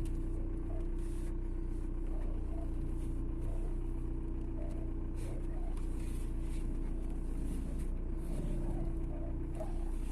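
A car's faulty steering rack squeaking, with short irregular chirps recurring about once or twice a second over a steady engine hum.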